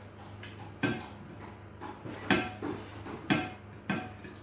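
Sharp clinks of a ceramic plate, about five in all, as food is scooped from it by hand, each with a short ringing tone, over a low steady hum.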